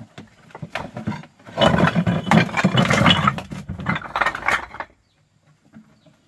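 Flat stones clattering as they are tipped out of a plastic bucket onto a pile of stones: a loud run of many knocks and scrapes that builds over the first second or so and cuts off abruptly near the end.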